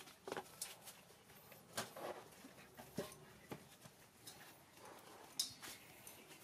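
Scattered light knocks and clanks of an aluminium cooking pot being carried and set down by a small monkey on a concrete floor.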